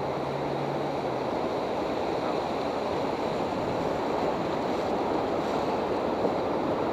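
Whitewater rapids rushing steadily around a river raft, slowly growing a little louder.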